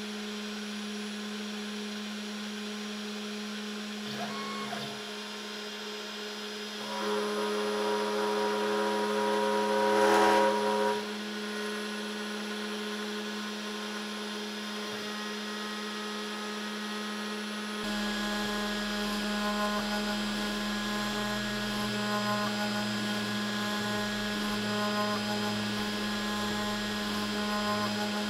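Wizmaker Artisan 01 desktop CNC router's spindle running at a steady pitch while its 30-degree V-bit engraves a pine board. About seven seconds in, the cutting noise grows louder and fuller, peaking around ten seconds, then it settles back to steady cutting.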